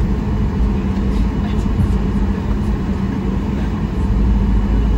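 Inside the cabin of a Boeing 737 jet airliner taxiing: a steady low engine rumble with a constant hum.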